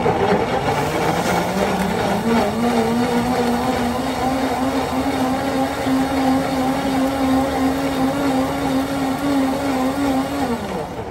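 High-speed commercial countertop blender, under its clear sound-enclosure cover, blending fruit for juice. The motor's whine climbs in pitch over the first couple of seconds, runs steadily, then winds down as it is switched off near the end.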